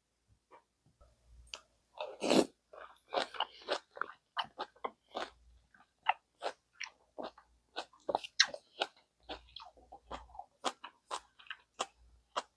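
Close-miked eating sounds of gamjatang (Korean pork-bone stew): chewing and biting in quick, irregular clicks, starting about two seconds in.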